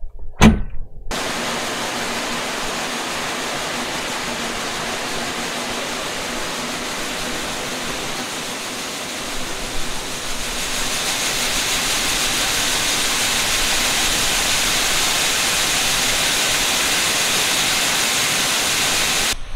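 Soybeans pouring from a grain bin's unloading auger into a grain cart: a steady rushing hiss. It grows a little louder and brighter about halfway through.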